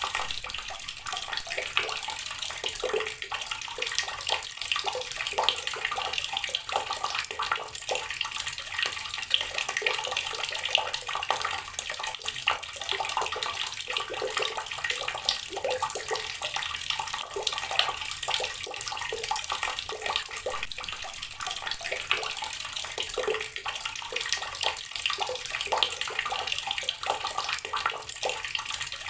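Water running from a tap and splashing onto rocks: a steady, unbroken stream with lots of small splashes and drips.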